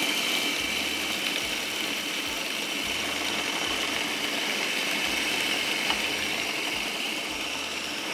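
Electric food chopper running steadily, its blade grinding boiled macaroni and chicken with spices into a coarse mix.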